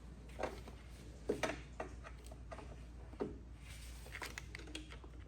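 A few separate short clicks and knocks of hand tools on the brake booster's mounting bolts, over a low steady hum.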